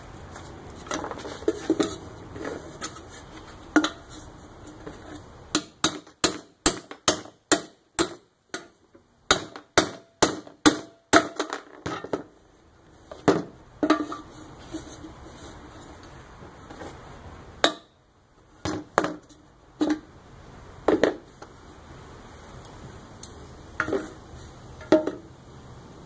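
Hammer striking an awl to punch a hole through the side of a steel coffee can. Scattered single blows, then a quick run of about a dozen at roughly two a second in the middle, then more single strikes, each with a short metallic ring.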